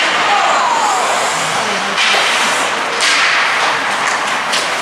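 Ice hockey play: skate blades scraping the ice as a steady hiss, with a few sharp knocks of sticks and puck about two, three and four and a half seconds in.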